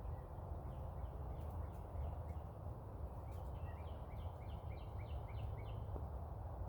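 A bird calling in a quick series of short descending notes, faint and spaced at first, then louder at about four a second before stopping near the end, over a steady low rumble.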